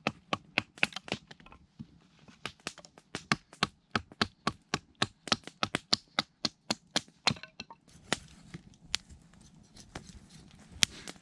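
Batoning: a wooden branch knocking the spine of a knife down through a small stick to split it, with sharp wooden knocks about three to four a second. About eight seconds in, this gives way to a campfire crackling with a few scattered pops.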